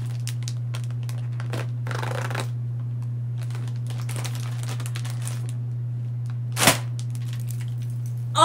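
Inflated foil toy bag crinkling as it is handled and torn, with one sudden loud crack near the end as it tears open. A steady low hum runs underneath.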